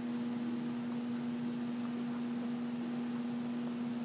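A steady hum at one pitch, with a fainter overtone, over a soft even hiss.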